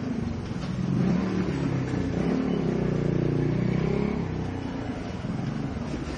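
A motor vehicle engine running nearby on the street, its note rising and then falling about halfway through.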